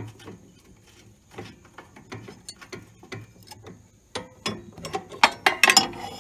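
Hand wrench loosening the bolts of a riding mower's belt-guard bracket: a run of light metallic clicks. Over the last two seconds come louder metal clinks and rattles as the bracket is worked loose.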